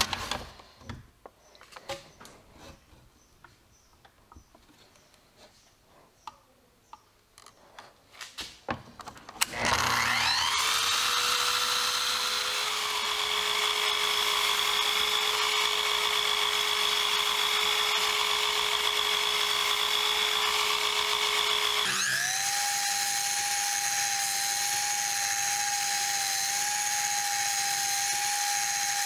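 Light clicks and knocks of wood being handled on a saw table, then about nine seconds in an electric miter saw's motor starts with a rising whine. It runs at a steady high whine as the blade cuts through a wooden strip. About two-thirds of the way in, the whine jumps abruptly to a higher steady pitch.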